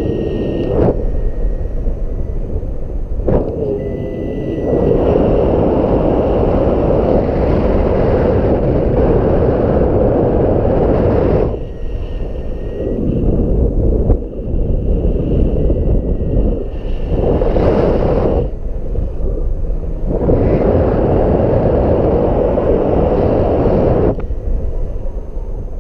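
Strong gusty wind buffeting the microphone: a heavy low rumble that swells and drops in gusts, with a few brief lulls.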